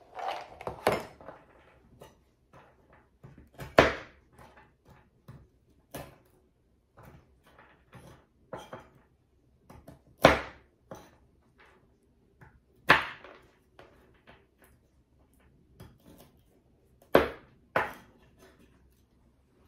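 Chef's knife chopping walnuts on a wooden cutting board: about five loud knocks of the blade on the board at uneven intervals, with many lighter taps and crunches between. A brief rattle of walnuts shaken from a can comes at the start.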